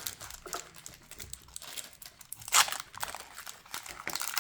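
Packaging crinkling and rustling as it is handled, in irregular bursts, with a louder crinkle about two and a half seconds in.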